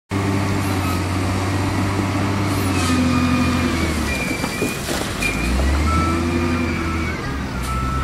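SDLG wheel loader's diesel engine running under load as it pushes dirt and rock, its pitch dropping and rising again midway as the load changes, with a few sharp knocks.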